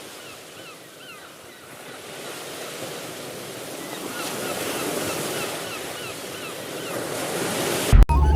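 Surf and wind noise with gulls calling in two runs of short, quickly repeated calls. Just before the end, a sharp click, then a loud low steady rumble begins.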